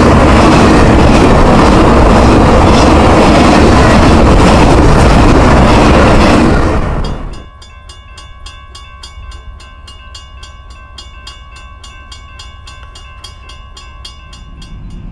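Double-stack intermodal freight train passing close by, its cars rumbling and rattling loudly on the rails. About seven seconds in this cuts to a much quieter railroad grade-crossing bell ringing steadily at about four strokes a second.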